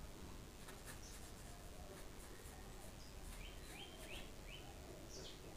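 Faint brushing of a paintbrush stroking paint onto paper, in short repeated strokes.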